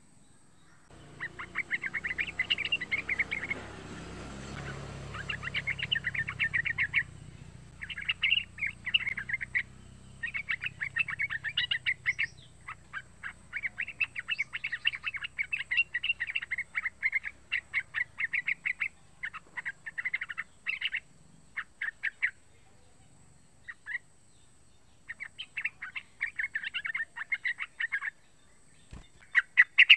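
Young yellow-vented bulbul singing: bursts of quick, chattering notes lasting a second or several, broken by short pauses.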